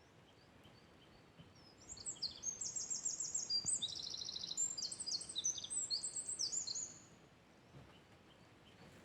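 Songbirds singing: a burst of quick, repeated high-pitched trills and chirps, several phrases overlapping, starting about two seconds in and stopping about five seconds later, with a few faint single chirps before it.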